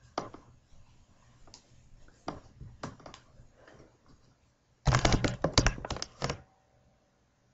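Handling noise close to the microphone: scattered clicks and light knocks with faint rustling, then a quick loud run of clicks and knocks about five seconds in that stops after a second and a half.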